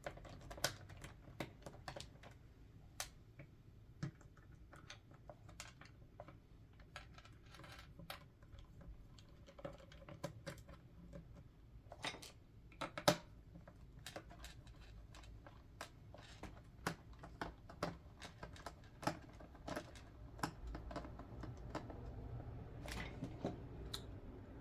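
Faint, irregular small clicks and taps of a screwdriver working out the bottom-cover screws of a laptop, with one louder click about halfway through.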